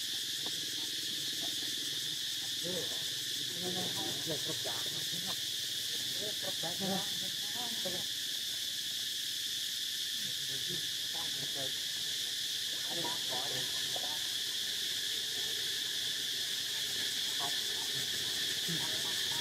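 Steady high-pitched insect chorus that carries on without a break, with faint, scattered short sounds at lower pitch in several brief clusters.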